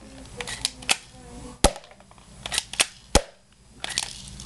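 Airsoft gun shots: sharp snaps, the two loudest about a second and a half apart, with clusters of lighter clicks in between.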